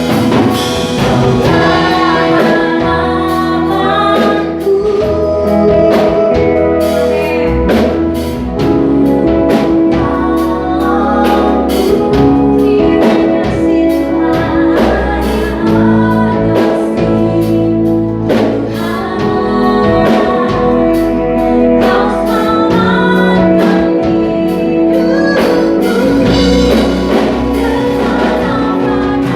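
Live praise and worship band playing with a singer and backing vocals: sustained keys and bass, drum kit hits and bending sung melody lines.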